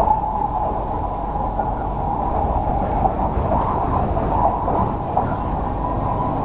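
CRRC Qingdao Sifang 'Q Train' metro EMU running between stations: a steady rumble of wheels on rail with a constant whine.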